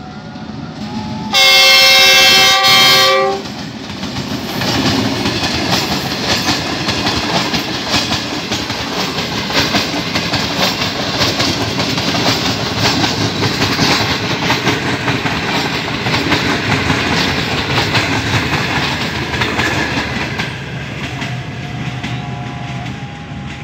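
A GE diesel-electric locomotive's multi-tone horn sounds one long blast and a short one, followed by the train running through at speed: the wheels clatter rapidly over the rail joints as the coaches pass close by, easing off near the end as the train moves away.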